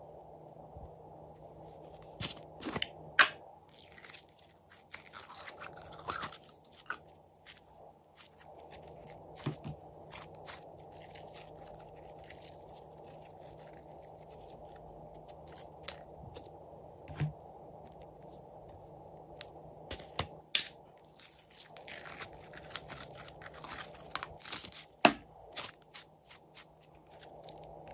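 Slime worked by hand: irregular sticky crackles and small popping clicks, with the sharpest pops about 3 seconds in and near the end while a lump of green slime is squeezed.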